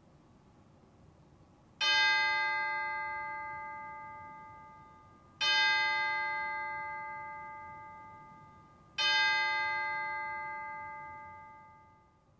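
Three strokes of the same chime note, evenly spaced about three and a half seconds apart, each ringing on and fading away; played from the church organ console's chimes.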